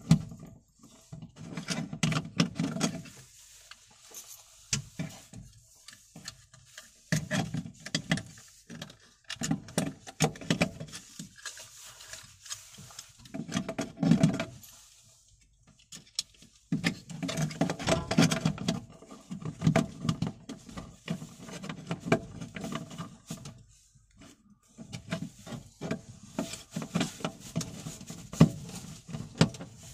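Small clicks, taps and rubbing as fingers handle and press a clear plastic housing against a metal panel, coming in bursts separated by short pauses.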